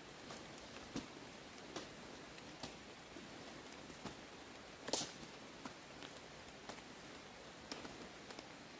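Hand tools hacking at undergrowth: faint, irregular chops about once a second, with rustling of plants, and one louder strike about five seconds in.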